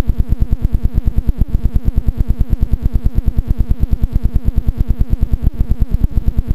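Rapid, even electronic buzzing pulses, about ten a second, over a steady low hum, put onto the recording by a faulty GoPro Hero 2 HD: an audio defect in the camera that now appears on every video it records.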